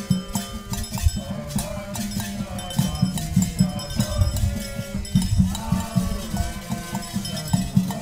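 Percussion-led music: steady hand-drum strokes with shaker and bell, under a melody of held notes that step up and down.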